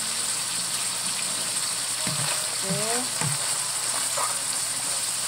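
Ground beef sizzling steadily in a frying pan as it browns in its own fat and juices, with a spoon stirring through the meat near the end.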